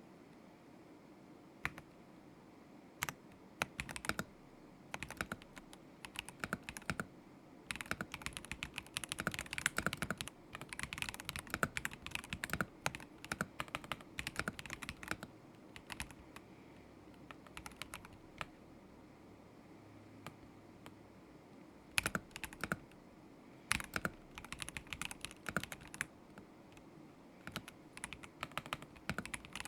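Typing on a Kzzi K75 Pro mechanical keyboard with Moment linear switches: runs of quick keystrokes broken by short stops, with a pause of several seconds past the middle.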